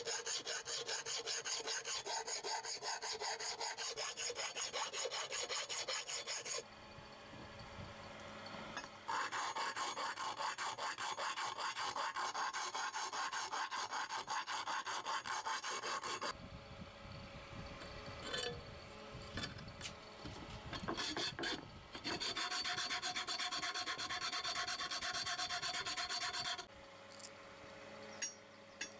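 A hand file rasping back and forth over a rusty iron sickle blade to clear the rust, in quick even strokes. The strokes come in three long runs with pauses between them, and a few light knocks in the second pause.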